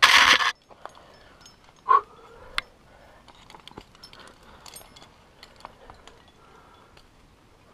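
Climbing gear racked on a harness (carabiners and cams) clinking in small faint ticks as the climber moves up the rock, with a loud half-second rush of noise right at the start and a short sharp sound about two seconds in.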